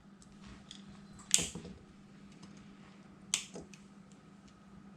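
Wire side cutters snipping the excess leads of soldered components on a circuit board: two sharp clicks about two seconds apart, with small ticks of handling between them.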